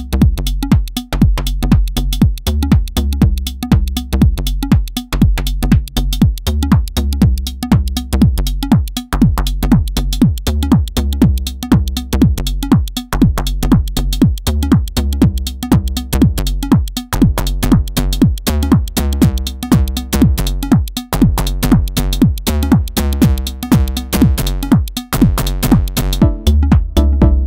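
Elektron Model:Cycles FM groovebox playing a looping electronic beat with a heavy bass and kick, its pattern tweaked live with the knobs and buttons so the tone shifts and sweeps in the second half.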